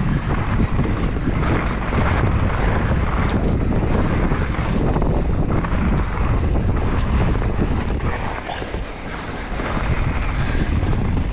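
Wind buffeting the microphone, with rushing tyre and trail noise, as a mountain bike descends at speed; it eases off briefly a little before the end.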